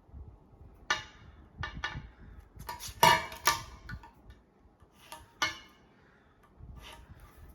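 Light clicks and knocks of small objects being handled on a hard surface, about nine separate taps, the loudest about three seconds in.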